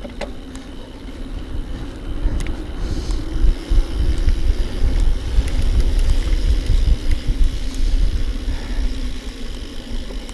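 Wind buffeting the microphone and mountain-bike tyres rumbling over a dirt trail on a descent. It gets louder from about two seconds in and eases a little near the end.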